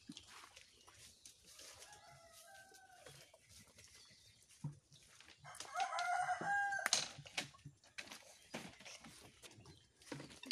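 Rooster crowing twice: a fainter crow about two seconds in, then a louder crow a little past halfway.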